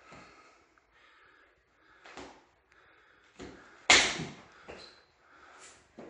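Karate sparring: a string of sudden thuds and slaps from strikes, blocks and feet on the dojo floor, about five in all, the loudest about four seconds in.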